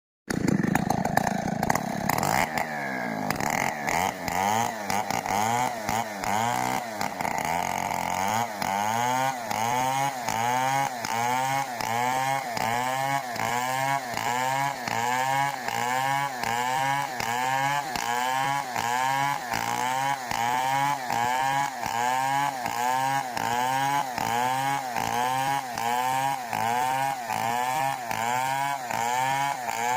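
Stihl 070 two-stroke chainsaw running, uneven for the first few seconds. It then settles into a steady cycle, its pitch rising and falling about three times every two seconds.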